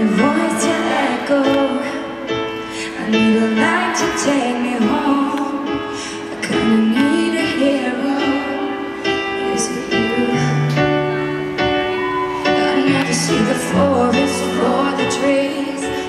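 A woman singing a slow pop ballad live into a microphone over instrumental accompaniment through a concert sound system, with long held notes. Deeper bass notes join about ten seconds in.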